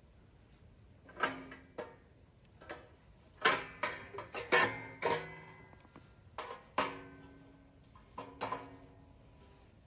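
Background music: slow, sparse plucked guitar notes, single notes and small chords each ringing out and fading.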